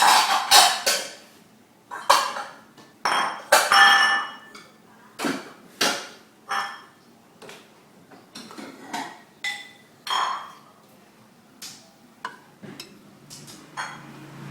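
A spoon clinking against a bowl while ingredients are scooped and mixed: a dozen or so irregular, sharp clinks, each with a short ring, loudest in the first four seconds.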